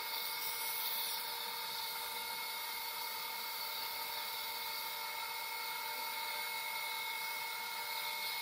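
Dental surgical suction unit running: a steady hiss with a constant high whine underneath.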